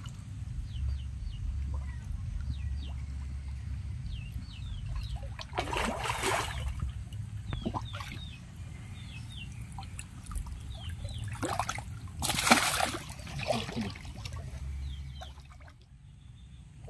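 Water splashing in a shallow muddy pool as catfish thrash at the surface for food around a hand, in two bursts: one about five seconds in, and a louder one around twelve seconds.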